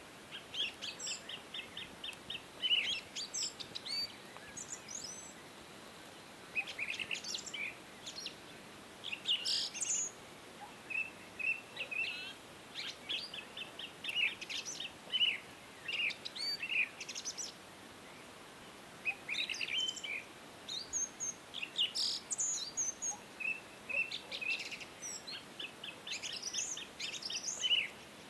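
Small birds chirping and trilling in quick repeated phrases, falling quiet briefly twice, over a faint steady hiss.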